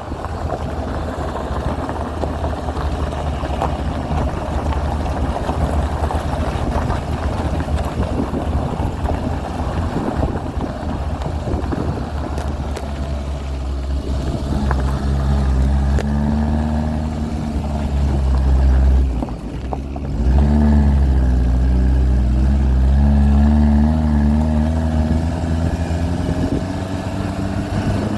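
Suzuki LJ80's small four-cylinder engine driving off road, with a rough, noisy rumble at first and then a steady engine note from about halfway. The engine briefly drops off about two-thirds in, then picks up again at slightly higher revs.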